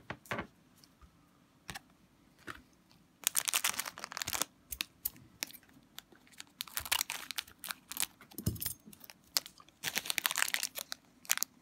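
Foil trading-card pack wrapper being crinkled and torn open by hand, in three bursts of crackling, with a few light taps of handling before the first.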